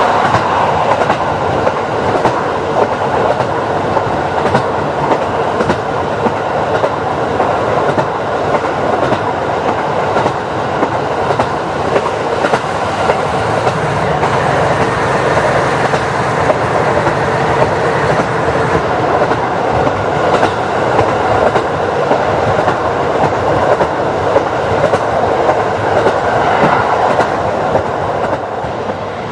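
KiHa 40 diesel railcar running along the line: a steady rumble of the wheels on the track, with irregular clicks from the rails throughout.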